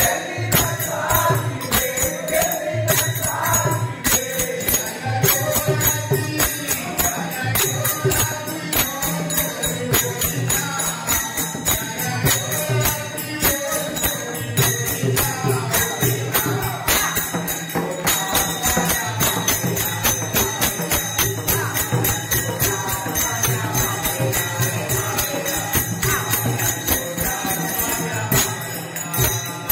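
Marathi devotional bhajan sung by a group of voices, with jingling hand cymbals keeping a fast, even beat over a low drum.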